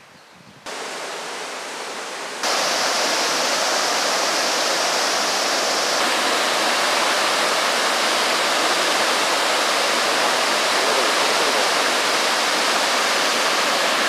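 Steady rushing of a small waterfall pouring over rock into a pool. It comes in faintly just under a second in and becomes much louder from about two and a half seconds in.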